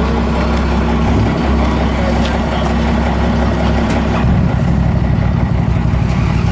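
Truck engine running close by, its note turning rougher and more pulsing about four seconds in, as when it is revved.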